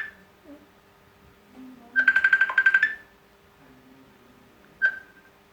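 Phone ringing with an electronic trilling ring: a fast, high pulsing about a second long, a pause, a second ring, then a single short blip near the end as the ring cuts off.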